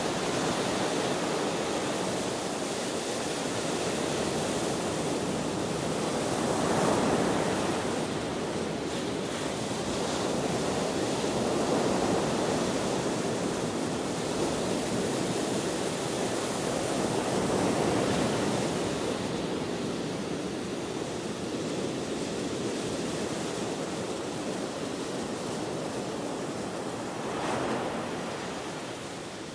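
Ocean waves breaking and washing ashore, with wind. The surf swells and eases in slow surges every five or six seconds.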